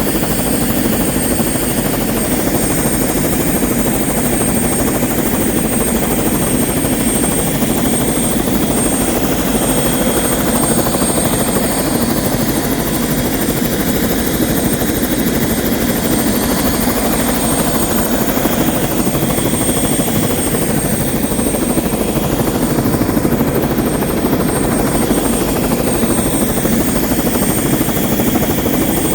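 Airbus AS355 twin-turbine helicopter running steadily, with a loud, constant rotor noise and a thin, high turbine whine above it.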